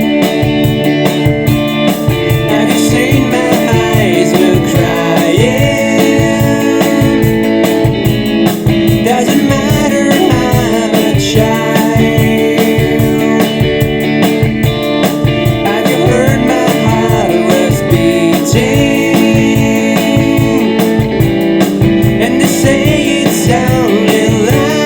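Rock band recording: guitar, organ and drums playing at a steady beat under held organ chords, with a lead line that bends in pitch coming and going over it.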